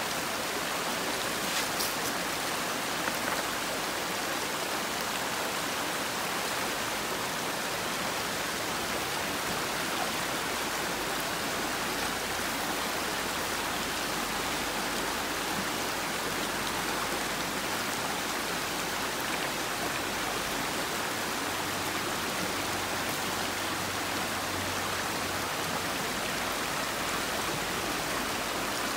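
A steady, even hiss with no pitch to it, holding at one level throughout, with a few faint clicks about two seconds in.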